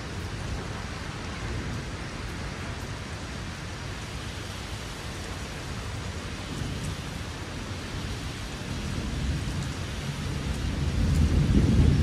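Thunderstorm: steady rain hiss, with a low rumble of thunder that builds over the last few seconds and is loudest near the end.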